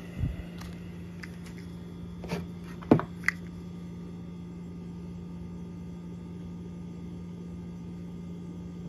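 A few sharp clicks and a dull knock in the first few seconds as small steel cam bearings are picked up and handled on the bench, the loudest click about three seconds in. A steady low hum runs underneath.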